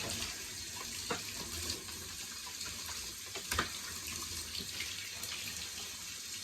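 Warm water running steadily over a shower head and shower hose as they are rinsed clean, with two light knocks of the fittings, about a second in and midway.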